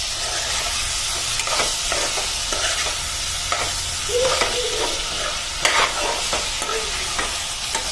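Chopped vegetables sizzling in hot oil in a kadai while a spatula stirs them: a steady frying hiss with scattered scrapes and clicks of the spatula against the pan.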